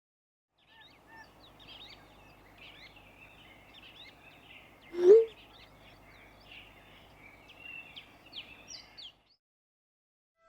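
Birds chirping and twittering steadily, with one loud short honk about halfway through that rises in pitch. The birdsong cuts off suddenly about a second before the end.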